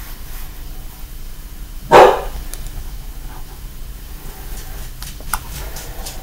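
A single short, loud animal call about two seconds in.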